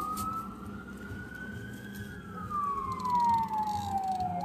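A siren wailing in the distance: a single tone that jumps up quickly, climbs a little, then slides slowly down, repeating about every five seconds.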